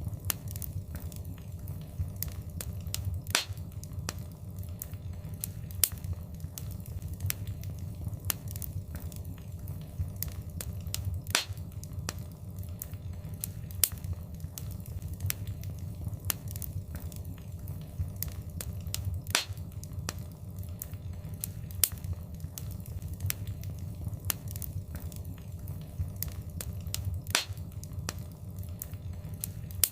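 Wood fire crackling, with many small clicks and a sharper pop every several seconds over the steady low rumble of the flames.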